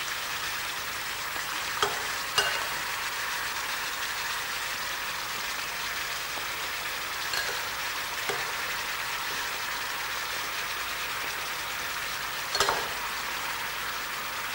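Steaks frying in hot oil in a pan, a steady sizzle, with a few short clicks of a spoon against the pan as spinach is spooned onto them.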